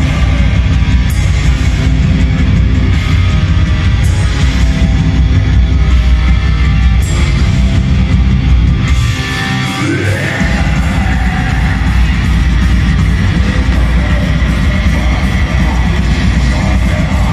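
Black metal band playing live at full volume: distorted electric guitars over heavy bass and drums, heard from within the crowd. About nine seconds in, the bass and drums drop out for about a second under a single rising note, then the full band comes back in.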